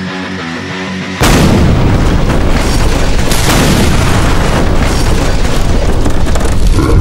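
Background music, then about a second in a sudden, very loud, distorted explosion sound effect that holds as a dense blast of noise for about six seconds.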